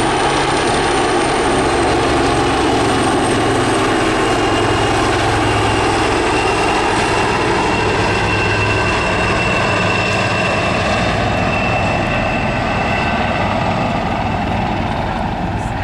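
A formation of aircraft including two Royal Navy Wildcat helicopters flies past, making a loud, steady drone of rotors and engines. A thin high turbine whine comes and goes through the middle of the pass.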